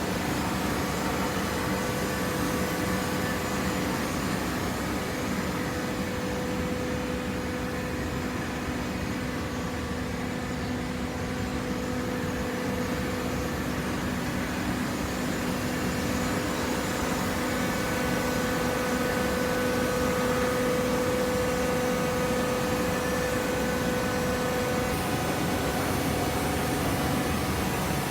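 A hydraulic baler's motor and pump running steadily: a continuous mechanical hum with a held whine. It grows slightly louder in the second half.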